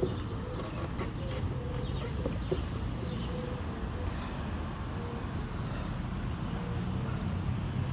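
Eurasian hoopoe calling: a short, low, hollow note repeated over and over at an even pace. Faint chirps from small birds and a steady low rumble sit behind it.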